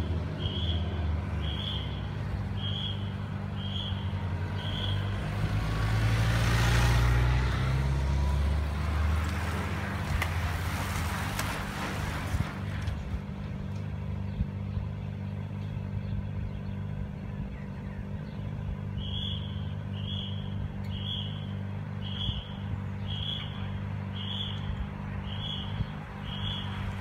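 Motor vehicle engines: a steady low engine hum, with a motorcycle accelerating past about six seconds in and another vehicle passing a few seconds later. A short high beep repeats about once a second for the first few seconds and again through the last several seconds.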